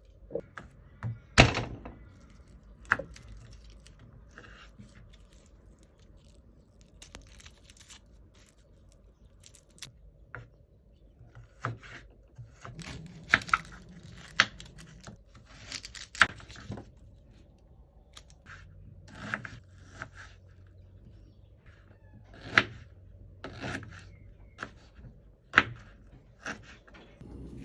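Irregular knocks, clinks and scrapes of kitchen utensils and dishes being handled, a dozen or so sharp hits with the loudest about a second and a half in.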